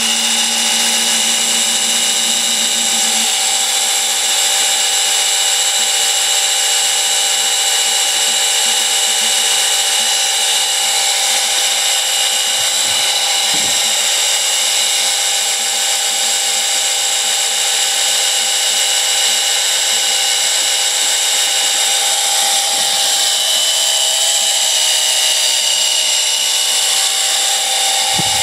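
Small electric oil-change pump running steadily with a high whine, sucking warmed engine oil up through the dipstick tube into a jug. A lower hum in the sound drops out about three seconds in.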